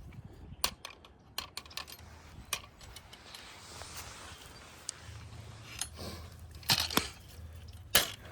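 Scattered metal clicks and clinks as a clamp is worked on the springs and steel frame of a Conibear 330 body-grip beaver trap, with two louder clacks near the end.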